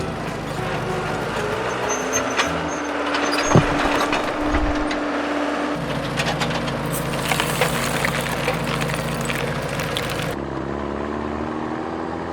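Heavy construction machinery sound effects: engines running steadily, with a sharp crack about three and a half seconds in and a hiss from about seven to ten seconds.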